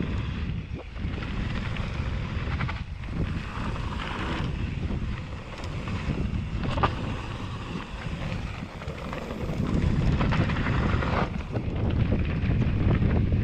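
Wind buffeting an action camera's microphone as a mountain bike rolls down a dirt trail, with a constant rumble and scattered knocks and rattles from the bike over rough ground.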